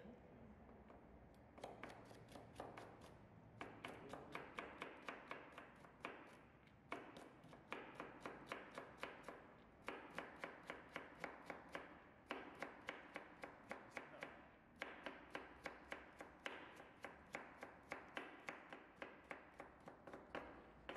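Chef's knife chopping carrot into thin julienne strips on a plastic cutting board: quick runs of knife strikes, about five a second, broken every couple of seconds by short pauses.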